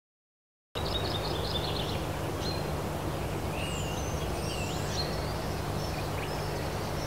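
Birds chirping and whistling in short rising and falling calls over a steady low rumble and hum of outdoor background noise. The sound cuts in abruptly from silence just under a second in, opening with a quick run of about half a dozen chirps.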